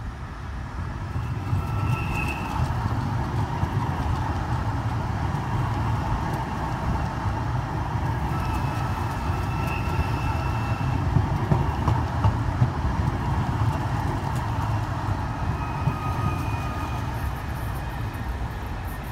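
Alstom Citadis Dualis tram-train passing close by: a steady low rumble of wheels on rail that swells about a second in, with a few brief faint high whines and light clicks as it goes by.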